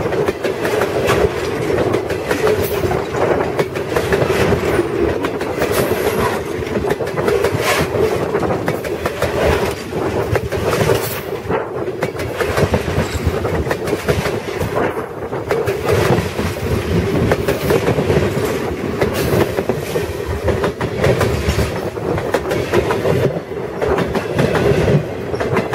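Freight cars passing directly over a microphone set between the rails: steel wheels rumbling and clattering on the track, with a steady droning tone under the clatter.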